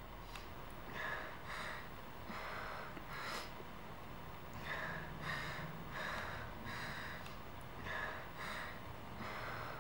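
A crying young woman's gasping breaths, short and uneven, one after another: the breathing of someone sobbing in fear.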